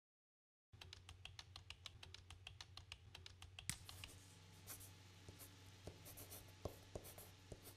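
Faint marker writing on a whiteboard: a run of light, quick ticks and scratches, starting under a second in, even at first and then irregular.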